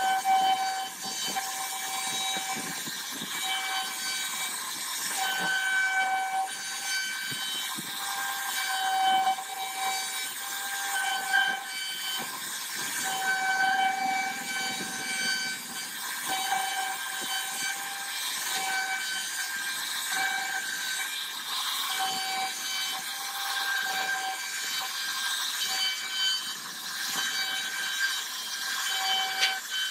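CNC router spindle running with a steady high whine while its bit carves grooves into a wooden door panel. A hissing cutting noise rises and falls as the bit moves through the wood.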